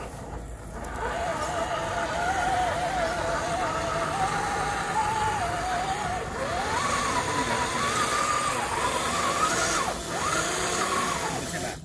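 Radio-controlled scale crawler truck's electric motor and gearbox whining, the pitch rising and falling unevenly with throttle and load as it climbs. The whine cuts off suddenly at the end.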